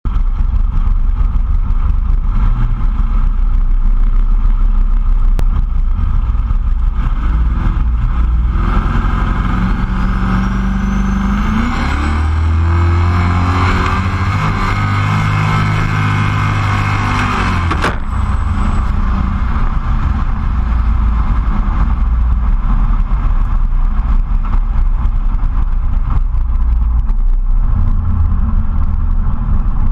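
Two cars drag racing from a standing start, heard from a camera mounted low on one of them. The engines rumble steadily, then about nine seconds in they run at full throttle, the engine note climbing with a high whistle rising over it. At about eighteen seconds the throttle is lifted abruptly, leaving a steady low rumble as the car rolls on.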